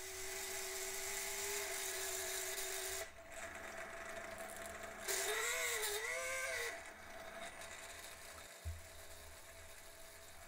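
Small electric draught fan on a model traction engine's chimney whining as it draws air through the freshly lit firebox. The whine is steady for about three seconds, drops away, then comes back louder with a wobbling pitch for a couple of seconds before fading.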